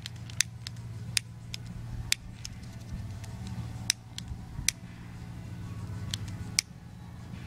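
Long-necked butane utility lighter's piezo igniter clicked over and over, about a dozen sharp clicks at uneven intervals, over a low steady rumble.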